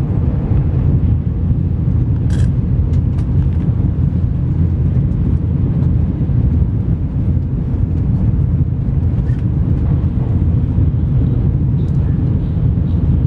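Steady low rumble of a Tokaido Shinkansen bullet train running at speed, heard from inside the passenger car, with a few faint clicks.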